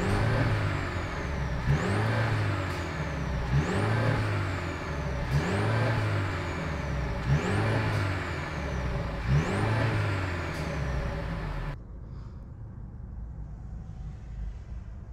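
2023 Mercedes-Benz C 300's 2.0-litre turbocharged four-cylinder, heard at the tailpipes, revved up and let fall back about every two seconds, six times, with a high whistle rising and falling with each rev. About twelve seconds in, the sound cuts to a much quieter low hum.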